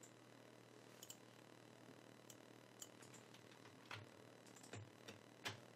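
Near silence: faint room tone with a handful of faint, scattered clicks of a computer mouse and keyboard.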